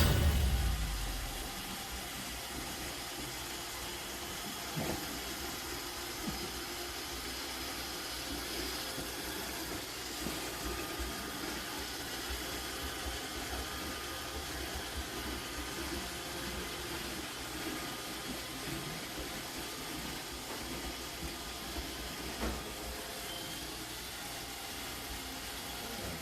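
Roomba robot vacuum running with a steady whir. A loud thump right at the start dies away over about a second, and a few light knocks come later.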